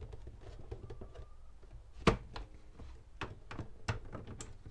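Plastic front cover of a Livoltek EV charger being slid up and lifted off its base: a run of light plastic clicks and knocks, with one sharper knock about two seconds in.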